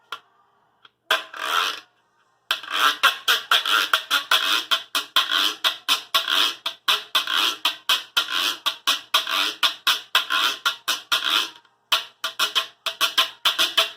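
Plastic Cuban güiro scraped with a stick. One long scrape comes about a second in, then a steady rhythm of short scraping strokes, with a brief pause near the end.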